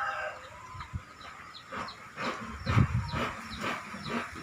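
Gusty wind rumbling on the microphone, loudest about three seconds in, with a bird chirping over it in quick short falling notes. The tail of a rooster's crow fades right at the start.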